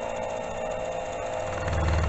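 Milling machine running with a steady spindle whine; near the end a heavy, evenly pulsing low chatter sets in and grows louder as the cutter bites into the steel block during a climb-milling cut.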